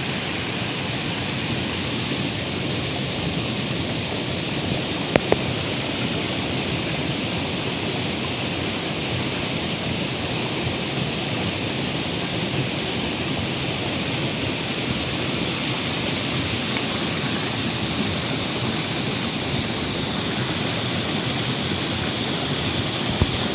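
Shallow rocky stream running over stones: a steady rush of water. Two short sharp clicks about five seconds in, and another near the end.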